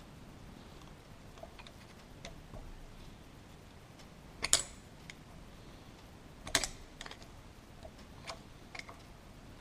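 Light metal-on-metal taps of a hammer on a screwdriver driving round the eccentric locking nut on a Peugeot 205 rear axle arm: scattered small clicks, with two sharper strikes around the middle.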